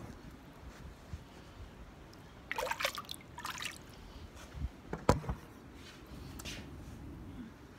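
Handling noise from a phone camera being picked up and set back in place: a brief burst of rustling and scraping, then a sharp knock about five seconds in as it is set down, with a few lighter taps.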